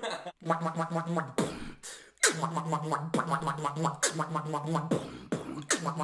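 Beatboxing: a low hummed bass note, rapidly pulsed, in three phrases broken up by sharp percussive mouth hits.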